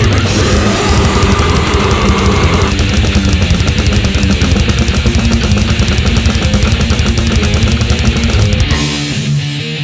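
Death metal: fast, dense drumming under heavily distorted guitars and bass. Near the end the drums and low end drop out, leaving a guitar riff on its own.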